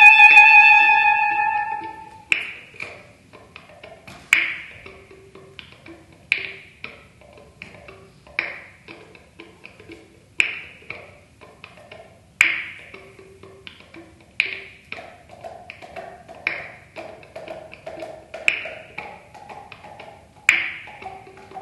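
Clarinet holding a long tone that breaks off about two seconds in, followed by a sparse rhythm of sharp, dry taps and clicks: a loud one about every two seconds with softer ones between, over faint pitched pops, as in extended-technique contemporary clarinet music.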